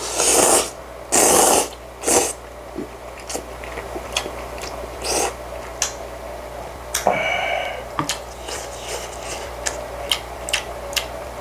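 Jjapaguri noodles slurped in two long, loud pulls at the start, then a few shorter slurps and chewing with small wet clicks and smacks.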